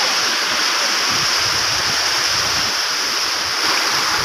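Surf from a rough sea breaking and washing up a sandy beach in a steady rush, with wind buffeting the microphone.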